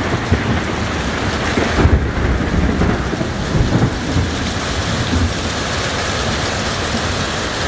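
Heavy rain pouring steadily, with a low rumble of thunder that swells about two seconds in and fades over the next few seconds.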